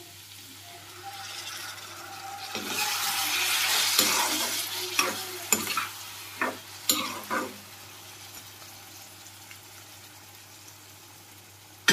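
A little hot water poured into a hot non-stick kadai of curry, sizzling loudly for a couple of seconds. A metal slotted spatula then scrapes and stirs against the pan a few times, and the curry goes on sizzling faintly.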